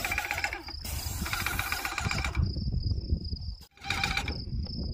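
Paint sprayer spraying in three bursts as the trigger is pulled, each a rapid pulsing buzz, the last one short. A steady high thin tone sounds between the bursts over a low rumble.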